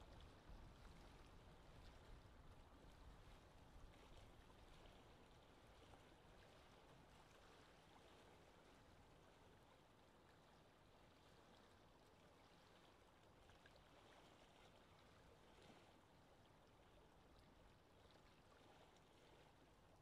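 Faint lake wind ambience: a steady windy hiss over water, with a low gusty rumble that is strongest in the first few seconds and then settles.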